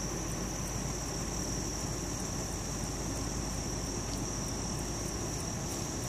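Steady drone of a great mass of honey bees at a hive crowded with bees, with a continuous high cricket trill over it.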